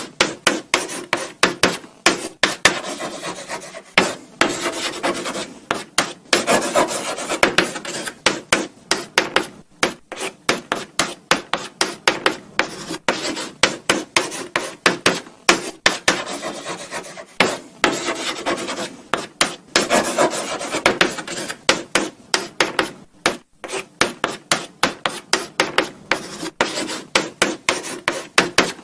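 Chalk writing on a blackboard: quick, uneven scratching strokes, several a second, with short pauses between bursts of writing.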